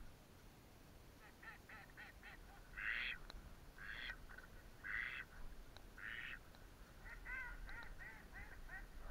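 Duck quacking: a quick run of short calls, then four louder quacks about a second apart, then another quick run of calls.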